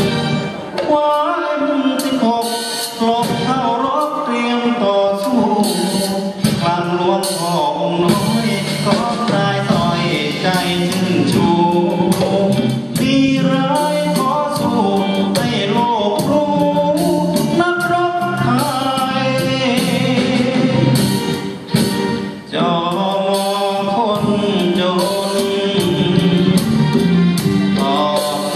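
A man singing a Thai song live into a handheld microphone, with band accompaniment and a steady beat.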